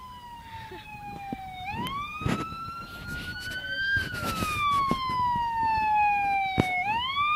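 Emergency vehicle siren wailing in long slow sweeps: the pitch slides down, jumps back up, climbs and slides down again over several seconds, growing louder.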